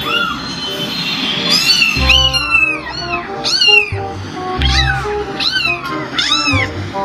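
Kitten meows, repeated over and over: short, high calls that each rise then fall, several a second at times. They sound over background music with a low bass beat.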